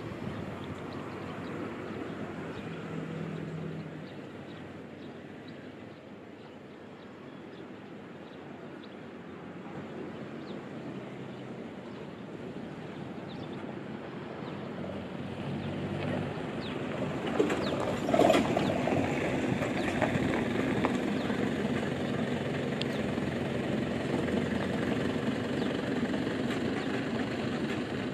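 Outdoor ambience with a motor vehicle's engine, which grows louder over the second half.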